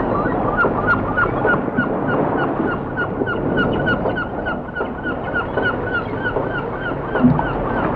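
A flock of gulls calling, a quick run of short, repeated cries at about three or four a second, over a steady background hiss.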